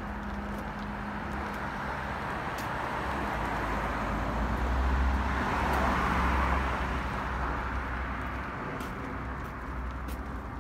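A car passing on the street, its tyre and engine noise swelling to a peak about halfway through and then fading away.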